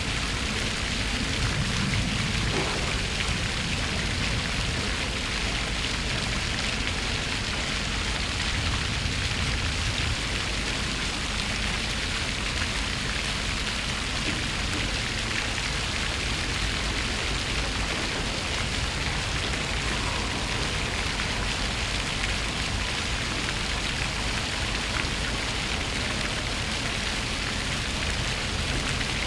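Fountain water running and splashing into its basin, a steady even rush of falling water.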